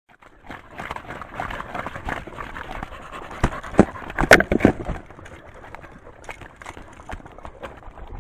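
Several dogs lapping water from a shallow rock pool close to the microphone, a steady wet slapping and splashing, with a few louder knocks and splashes a little past the middle.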